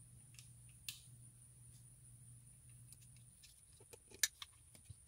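Hard plastic RC buggy parts clicking and tapping as they are handled and fitted together: a single click about a second in, then a quick run of clicks near the end, the loudest about four seconds in.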